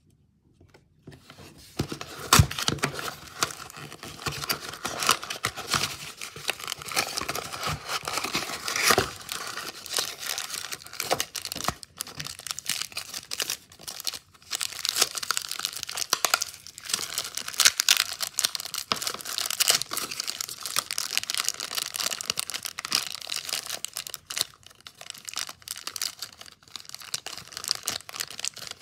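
Packaging being opened by hand: a cardboard box pulled and torn open, then a clear plastic bag crinkling as it is pulled open, with continuous crackling and a few sharp snaps.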